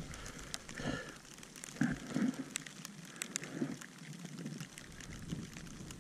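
Hail ticking on the rider's helmet camera: scattered, irregular sharp little clicks over a quiet background, with a muffled bump about two seconds in.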